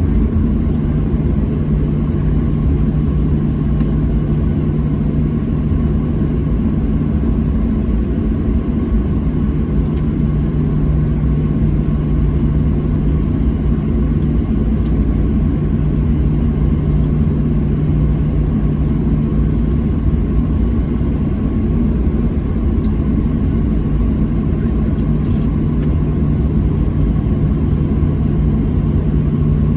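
Inside the cabin of a Boeing 737-700 on the taxi: its CFM56-7B jet engines running steadily at low taxi power, a constant low drone and rumble with a steady low hum.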